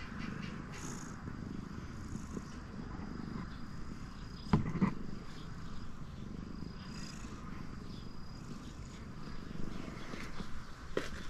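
Domestic cat purring, a steady low rumble, with two sharp knocks about halfway through.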